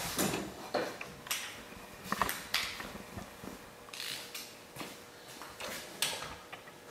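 Irregular metallic clinks and clanks of hand tools and a front brake caliper being handled, over a faint steady hum.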